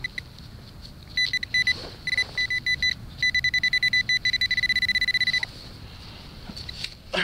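Garrett Pro-Pointer pinpointer probe beeping in a high tone as it is swept through a dig hole, signalling a metal target still in the soil: a few scattered beeps, then rapid pulsing for about two seconds as it closes on the target, then it stops. A brief scuff at the very end.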